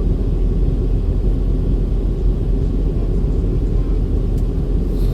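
Steady low rumble of engine and airflow noise inside an airliner's passenger cabin on approach, with a single sharp click near the end.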